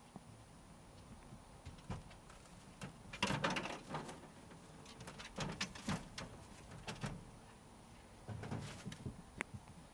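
Dry hay and grass rustling and crackling in a rabbit hutch as rabbits move and feed in it, in several short spells.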